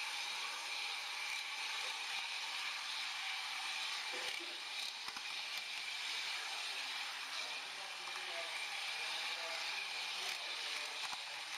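H0 model train running along the track: a steady whirring hiss with a few faint clicks.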